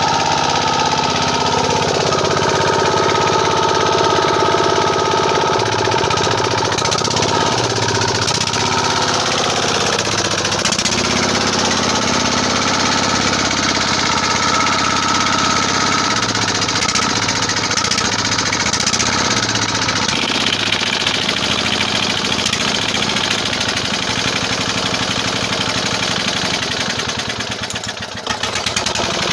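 Small F170 single-cylinder diesel engine running with a steady, rapid diesel knock. Its note sags briefly near the end, then picks up again.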